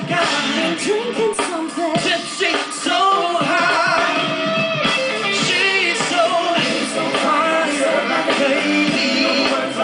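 Pop song performed by a singer over a band, with guitar in the mix; the vocal melody wavers and carries through without clear words.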